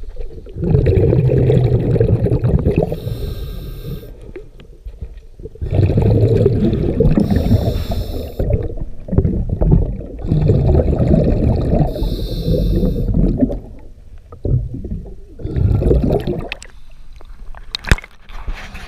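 Scuba diver breathing through a regulator underwater: short hissing inhales alternating with long bubbling exhales, several breaths in a row. Near the end there are sharp splashes as the diver reaches the surface beside the hull.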